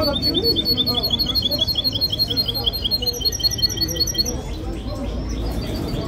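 A caged songbird singing a fast run of short repeated chirps, about five a second. About three seconds in it switches to a higher note, and it stops a little after four seconds in.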